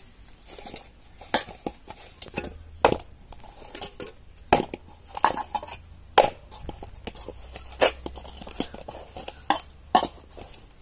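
A stiff dough being kneaded and pressed by hand in a large aluminium bowl, the metal bowl giving irregular sharp knocks and taps, about one or two a second.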